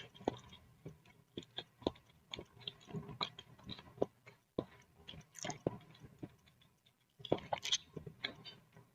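Close-miked chewing of boiled instant noodles with egg: wet, irregular mouth clicks and smacks, with a short pause about seven seconds in.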